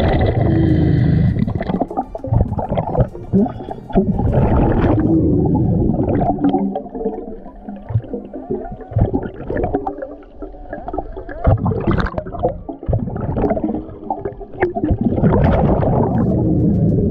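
Underwater sound around a diver breathing from a Dive BLU3 Nomad hookah air system: exhaust bubbles gurgling past the camera over a deep rumble, with many short knocks and scrapes.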